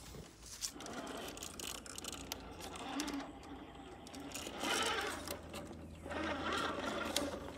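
Electric motor and geared drivetrain of an RC rock crawler whirring as the truck crawls slowly up a rock step, swelling twice in the second half as throttle is applied.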